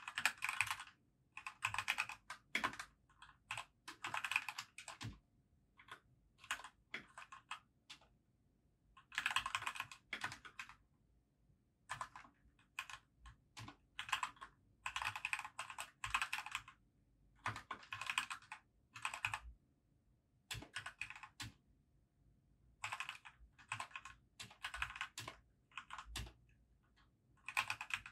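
Typing on a compact backlit mechanical keyboard: runs of rapid keystroke clicks, broken by pauses of a second or two.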